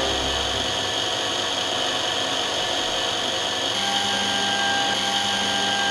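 Small electric drill motor of a DM-200 optical lens drilling machine running steadily as its cutter drills a hole in a spectacle lens. Its pitch holds steady, and about four seconds in a second steady tone joins it.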